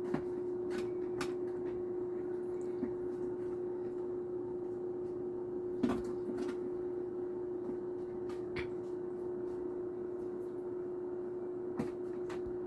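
Kitchen work: a few scattered knocks and clicks, like utensils, lids or cupboard doors being handled, the loudest about six seconds in, over a steady electrical hum.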